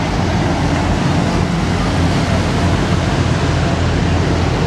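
Steady low rumble and rushing noise of a Thames river tour boat under way: engine drone mixed with the wash of water and wind.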